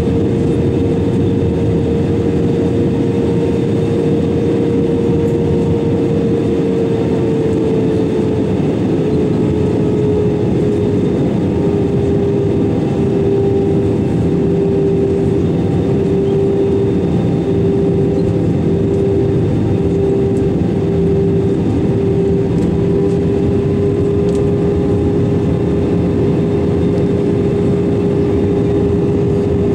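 Airbus A320-200 cabin noise from a window seat: a loud, steady rush of airflow and engine noise, with a steady engine tone that drops slightly in pitch about eight seconds in, then holds.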